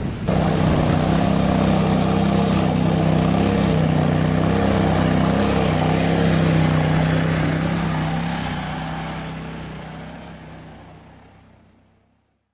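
An engine running steadily at a constant pitch, fading out over the last few seconds.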